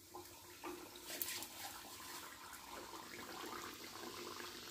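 Arisa pitha (rice-flour and jaggery dough) frying in hot oil in an iron kadhai, sizzling. A few sharp crackles in the first second and a half, then a steady sizzle.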